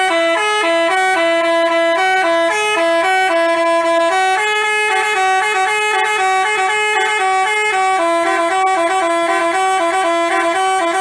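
Basuri telolet bus horn playing a fast tune, two horn notes sounding together and stepping up and down in pitch without a break.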